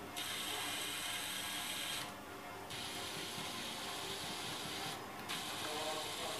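Small electric gear motors of a four-wheel mecanum-wheel robot running, with a steady whir and a rattle from the gears and wheel rollers. The motors stop twice: about two seconds in for just over half a second, and again about five seconds in for a moment.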